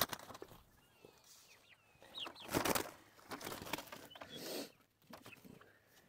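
Turkeys calling with short high chirps, broken by a couple of noisy bursts of wing flapping, the loudest about two and a half seconds in.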